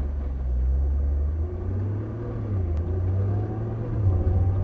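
Nissan GT-R's twin-turbo V6 pulling away from a standstill under throttle, heard from inside the cabin as a low rumble, with the engine note rising in pitch from about halfway through as the car gathers speed.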